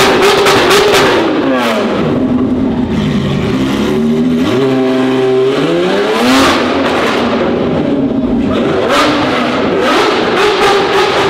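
High-performance car engine being revved: held at high revs, the pitch falls away about a second and a half in, rises to a peak around six seconds, drops again and climbs back up near nine seconds.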